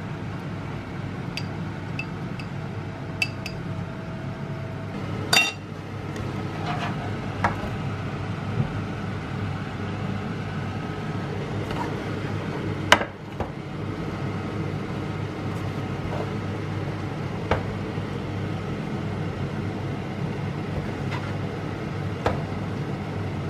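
A metal spoon clinking and scraping against a glass bowl and a serving plate as food is dished out, with scattered sharp clinks, the loudest about five and thirteen seconds in. A steady low hum runs underneath.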